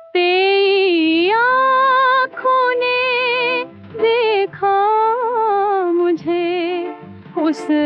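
A female voice sings a wordless, ornamented melody with wide vibrato and sliding notes, in phrases broken by brief pauses, over a soft accompaniment.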